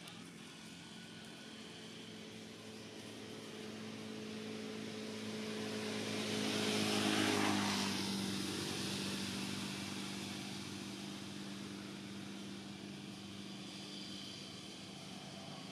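A motor vehicle passing by: its engine hum builds for several seconds, peaks about seven seconds in, drops in pitch as it goes past, then fades away.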